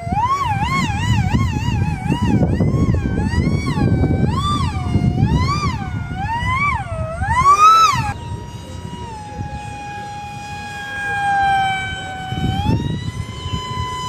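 Small brushless electric motor and propeller of an RC plane whining, its pitch swinging rapidly up and down as the throttle is worked for the first eight seconds, then holding steadier, sliding slowly lower and rising again near the end, over a rough rumbling noise.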